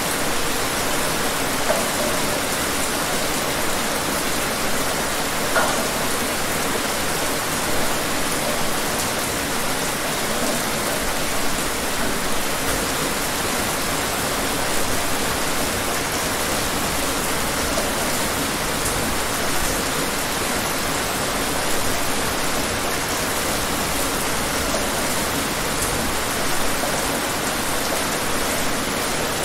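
Steady rain falling, an even hiss with a few louder single drops standing out.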